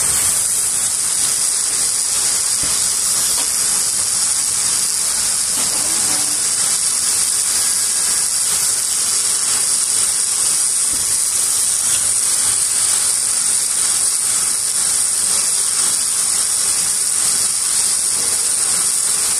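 Steady high-pitched hiss of an edge banding machine line running, with a faint mechanical rattle beneath it.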